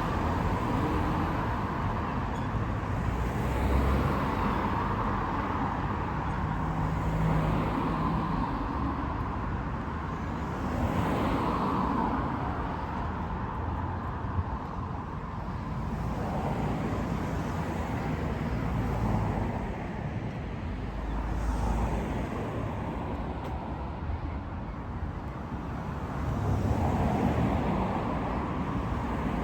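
Road traffic: a steady wash of car noise, swelling several times as individual vehicles pass.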